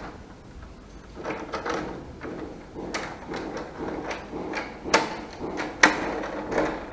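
A wooden hotel-room door being handled and pushed shut, with sharp clicks from its latch, the loudest about five seconds in and again just before the end.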